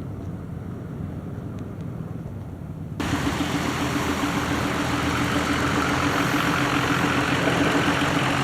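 A small engine running steadily. It comes in abruptly about three seconds in, louder than the low rumble before it.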